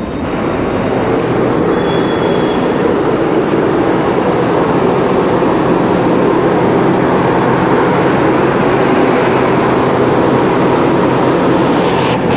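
City bus engine running loud and steady, swelling over the first second.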